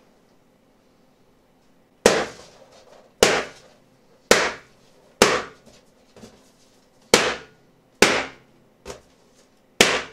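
Balloons burst one after another with a skewer: eight sharp pops about a second apart, starting about two seconds in, one of them near the end smaller than the rest.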